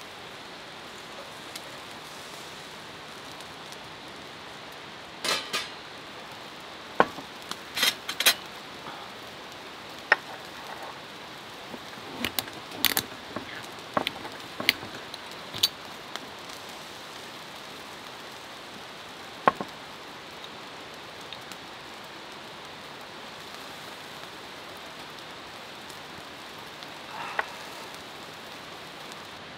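Steady hiss of rain, with a scattered run of light clicks and clinks from about five to sixteen seconds in as metal utensils, a steel plate and a glass bottle with its screw cap are handled, and one or two more later on.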